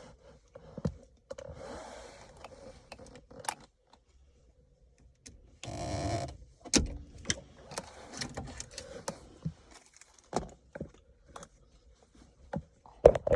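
Ignition key and key ring jangling with scattered metal and plastic clicks as the lock cylinder is worked loose and pulled out of the steering column. The loudest is a rattle just under a second long near the middle.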